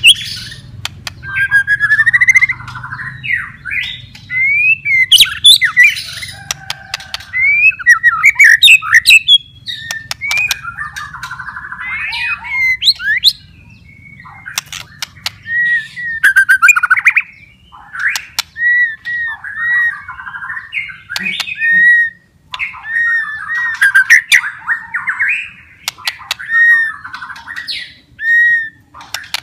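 White-rumped shama (murai batu) in full song: loud, varied whistled phrases mixed with harsh chatter and sharp clicking 'kretekan' notes. In the second half it repeats a short curved whistle about once a second between other notes.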